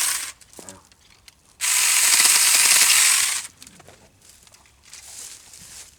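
Saker mini battery chainsaw with a 4-inch bar running in two short bursts while cutting small fruit-tree limbs: one burst ends just after the start, and a longer one of about two seconds comes about a second and a half in.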